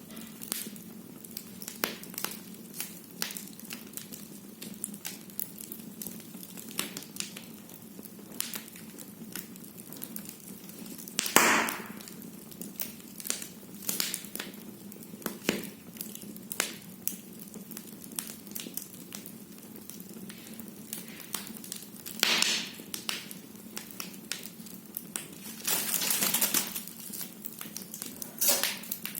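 Firewood burning in a fireplace, crackling with irregular sharp pops and snaps, and a few louder hissing, sputtering bursts: one about a third of the way in, and two more past the two-thirds mark, the last lasting about a second.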